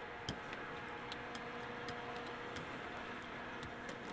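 Rubber brayer rolling tacky acrylic paint across a gel plate and paper, making a run of light ticking clicks about three to four a second.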